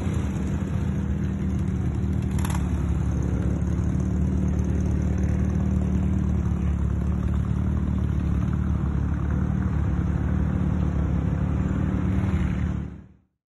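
Motor trike engines running with a steady low note as trikes and cars pass close by. The sound cuts off near the end.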